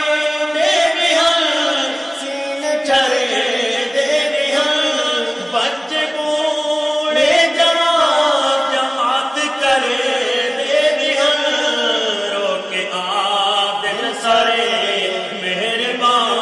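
Male voices singing a Saraiki naat, a farewell-to-Ramadan nazm, in a chanting style with long notes that bend up and down in pitch.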